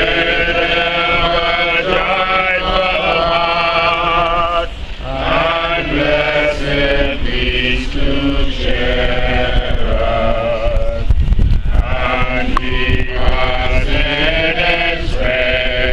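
People singing slowly together in long, wavering sung phrases with short breaks between them, with no clear instrument. A low rumble on the microphone comes in about eleven seconds in.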